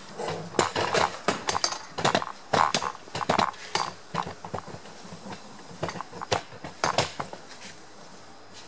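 Irregular clinks and knocks of hard objects being handled, coming thickly at first and thinning out about seven seconds in.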